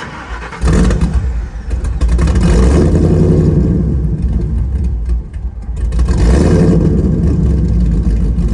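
Ford SVT Lightning pickup's V8 engine being started: a brief crank, then it catches suddenly about half a second in with a rev, and settles to a loud idle. It revs up again around six seconds in.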